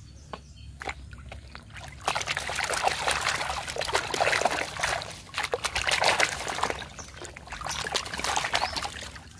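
Muddy water splashing and sloshing in a metal basin as a plastic toy train is swished and scrubbed under it by hand, starting about two seconds in.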